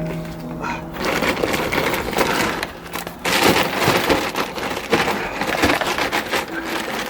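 Soil and potting compost being handled in repotting a root-bound tree into a bucket, a rough, irregular crunching and rustling that starts about a second in. Quiet background music plays under it.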